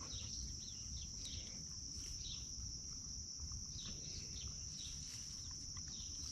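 Summer insects droning in a steady high-pitched chorus, with birds giving short chirps now and then over it.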